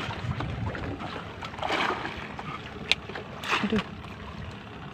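Sea water sloshing and splashing against the side of a small outrigger fishing boat, swelling twice about two seconds apart, with a single sharp click near the middle.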